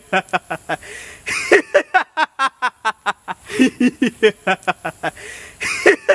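A man laughing loudly in long runs of rapid 'ha-ha-ha' pulses, about six a second, with a sharp breath drawn in between runs roughly every two seconds.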